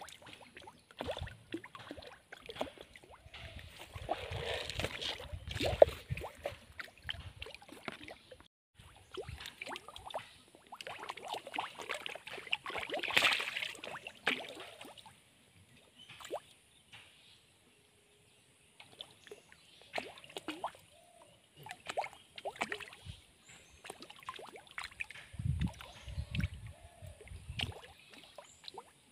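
Fish rising to floating feed pellets at a pond's surface, making small splashes and sharp clicks at irregular intervals, in busy flurries with short lulls between. A few low thumps come near the end.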